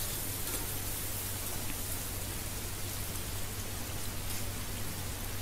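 Sliced onions and green chillies sizzling steadily as they sauté in hot oil in an aluminium pot.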